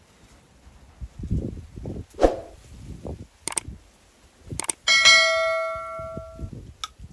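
A few knocks and handling thumps, then a single loud metallic clang a little before five seconds in that rings for about a second and a half.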